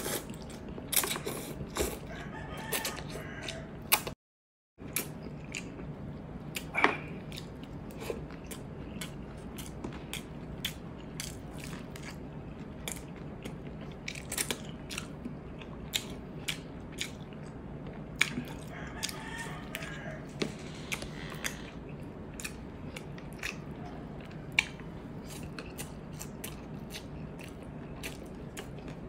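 Close-miked eating sounds: chewing, lip-smacking and slurping of instant noodles, rice and Spam, with many short wet clicks scattered throughout. A steady low hum runs underneath, and the sound drops out briefly a little after four seconds in.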